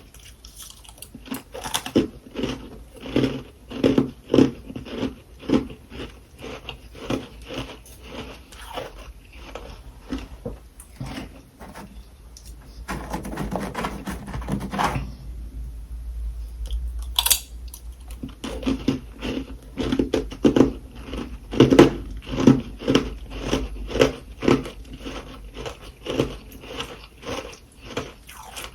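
Close-miked chewing and crunching of powdery freezer frost: a steady run of crisp bites and crunches, about two a second. Near the middle it gives way for a couple of seconds to a softer, steadier rustle before the crunching resumes.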